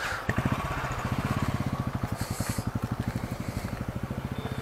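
Motorcycle engine running at low revs, a steady rapid pulse of firing strokes.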